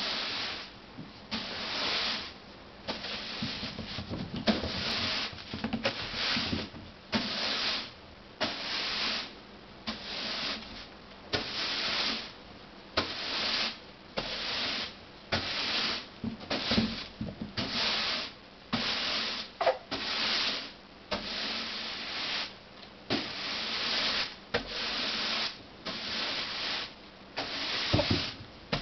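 Straw broom swept back and forth across a wooden floor: an even, bristly swish a little more than once a second, with a few light knocks here and there.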